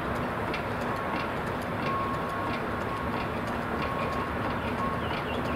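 Steady mechanical running noise of the crane lifting a steam locomotive's boiler on chains, with a faint tone that comes and goes and light scattered ticks.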